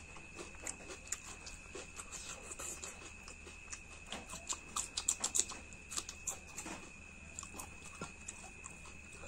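Close-miked mouth sounds of a person eating: irregular wet chewing, lip-smacking and small clicks, with a quicker run of smacks about halfway through.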